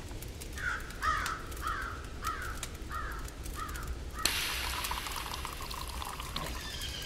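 A run of about six short, evenly spaced squeaks, then about four seconds in a sudden steady hiss as pressurised espresso sprays out of the Handpresso Wild hand-pumped portable espresso maker.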